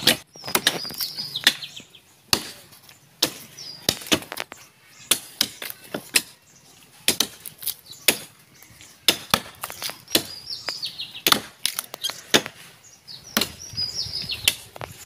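Axe chopping into a tree trunk by hand: sharp, irregular strokes about one or two a second. Short falling bird calls sound now and then.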